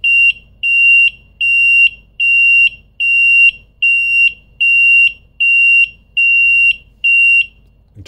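Seaflo 95-decibel high water alarm buzzer sounding: a loud, high-pitched electronic beep of one steady pitch, repeating a little more than once a second, about ten times, and stopping near the end. It is set off by wet fingers bridging the two sensors of the electric field bilge switch, which reads as water in the bilge.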